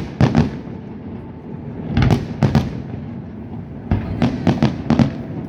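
Aerial fireworks bursting in quick clusters of sharp bangs: a pair at the start, a group of about three around two seconds in, and a longer run of five or six from about four seconds in.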